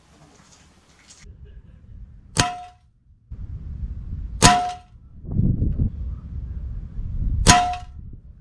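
Three shots from an Artemis PR900W PCP air rifle, about two and three seconds apart, each a sharp crack with a short metallic ring. A low rumble runs between the shots.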